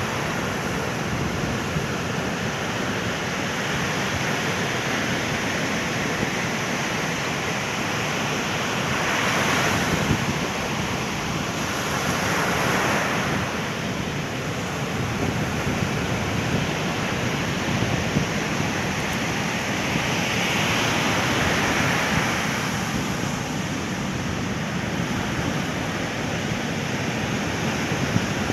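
Ocean surf breaking on a sandy beach: a continuous wash of waves that swells louder as breakers come in, about a third of the way in, again shortly after, and around three quarters of the way through.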